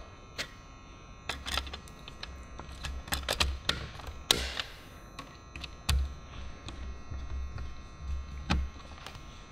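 Plastic clicks and knocks of a variable frequency drive's front cover being handled, fitted and snapped into place by hand, about ten sharp clicks at irregular intervals, with a short scrape about four seconds in.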